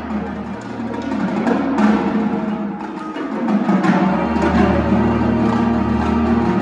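Indoor percussion ensemble playing: quick drum and mallet strikes over a held low bass tone. The bass drops out near the middle and comes back about four seconds in as the music grows louder.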